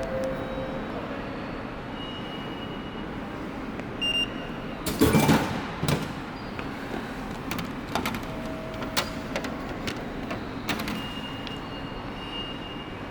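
Steady running noise of a commuter train heard from inside the car. Short high electronic tones sound a few times, and a louder rushing burst comes about five seconds in, followed by a few clicks.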